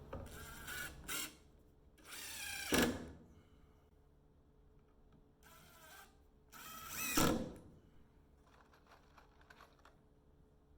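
Power drill driving screws, run in three short bursts, the motor's pitch bending during each run; the second and third runs are the loudest.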